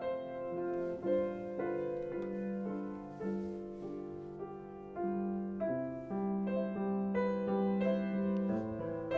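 Slow piano music: sustained notes and chords that change about once a second.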